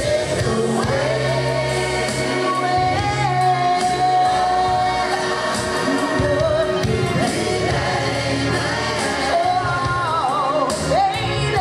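A mixed vocal group singing together over instrumental backing with a steady bass line; a lead voice holds long notes with vibrato, one held for about two seconds around three seconds in.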